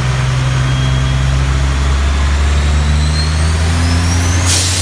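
Dodge Ram's Cummins diesel running hard and steady, with a faint whistle climbing in pitch. About four and a half seconds in, a loud hiss starts as a fire extinguisher is discharged into the engine bay.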